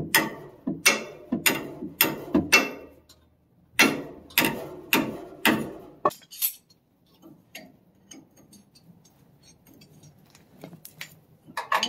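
Sharp metal-on-metal knocks on a rusty leaf spring shackle being worked loose after its rubber bushing was softened with a torch: about three strikes a second in two runs, with a short pause between. After about six seconds only faint clicks remain.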